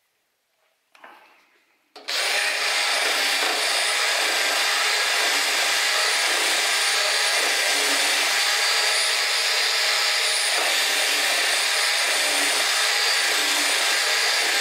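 Cordless rotary tool with a carbide burr starts up about two seconds in and runs steadily at high speed with a high whine, grinding away material inside the steel bore of a scooter engine mount to enlarge it.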